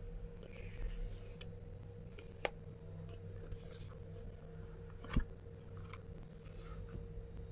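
The seal on a smartphone box being broken open: a short scraping rip about a second in, then fainter rubbing of cardboard and two sharp clicks, one about two and a half seconds in and one about five seconds in.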